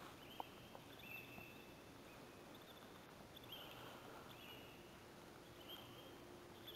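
Near silence: quiet field ambience with faint, short, high squeaks repeating every second or so.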